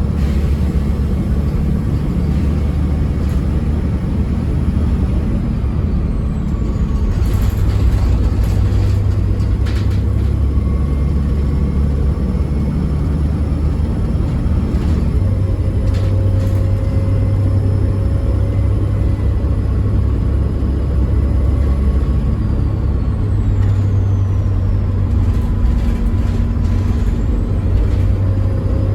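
Diesel bus engine running under way, with a steady low drone whose note shifts about halfway through and a thin whistle from the turbocharger above it. A few short hisses or knocks break in, one cluster about a quarter of the way through.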